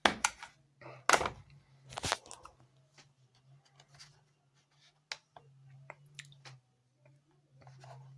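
Handling noises from the finished heat-shrink-wrapped battery pack: three loud knocks and crinkles in the first two seconds, then lighter clicks and rustles, over a low steady hum.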